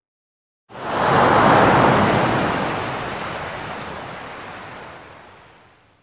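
One ocean wave breaking on a beach: a sudden rush of surf less than a second in, after a short dead silence, which then slowly washes out and fades over about five seconds.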